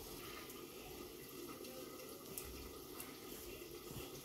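Faint, steady hiss with a few light clicks of a spoon against a stainless-steel mixing bowl as dry flour and jaggery are stirred.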